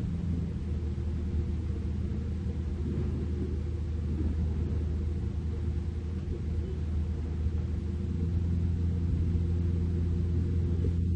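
Kobelco SK200 hydraulic excavator's diesel engine running steadily under working load, a low drone that grows a little louder about eight seconds in.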